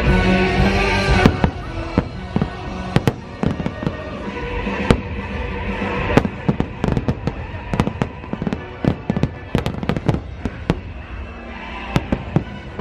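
Fireworks going off in quick succession: many sharp bangs and crackles, densest in the second half, over the show's music soundtrack.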